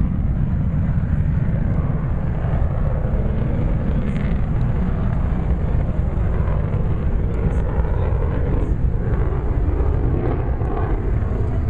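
Airplane flying overhead, heard as a steady low rumble of engine noise.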